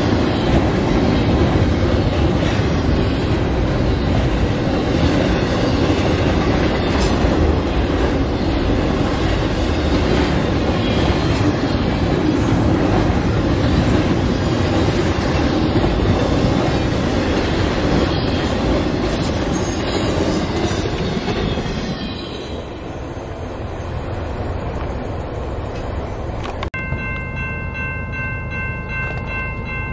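Double-stack intermodal freight train rolling past close by, a steady loud rumble of steel wheels on the rails that eases off about two-thirds of the way through. Near the end, after a cut, a locomotive horn sounds a held multi-note chord.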